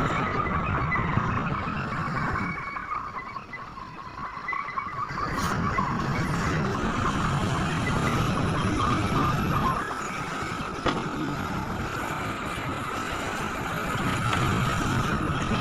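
Large excavator's diesel engine working under load with a steady high whine over a low rumble. About three seconds in it quietens for a couple of seconds, then picks up again.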